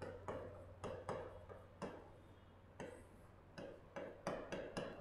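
Faint, irregular tapping and clicking of a pen on the glass of an interactive touch display while writing, about a dozen sharp taps.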